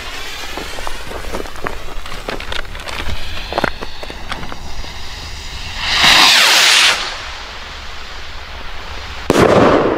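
Firework rocket: the fuse sputters and crackles with scattered small clicks, then the rocket launches with a loud rushing hiss of about a second. A few seconds later there is a sudden loud bang as the rocket's break-up charge bursts.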